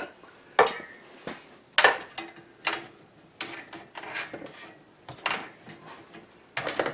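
A steel bandsaw blade being flexed, turned inside out and set back into a steel joining fixture: about five sharp metallic clinks and knocks, a second or so apart, with rubbing and scraping between them.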